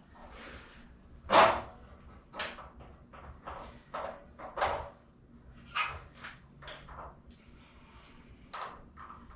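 A string of short knocks and clinks from bushings, bolts and hardware being handled and fitted, the loudest about a second and a half in.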